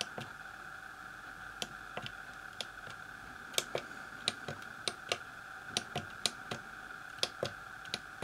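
Keys on the keypad of an Elektronika MK-161 programmable calculator being pressed one at a time: about fifteen short, irregular clicks as a command is typed in.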